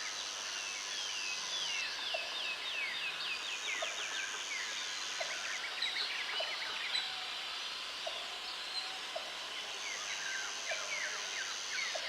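Wild natural ambience: many birds chirping in quick runs of calls, joined three times by a steady high insect-like buzz, over a faint pip that repeats about every 0.7 seconds.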